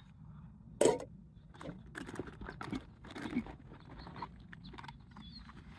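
Camping gear being handled while a kitchen bag is unpacked: one sharp knock about a second in, then a run of light clicks, clatter and rustling.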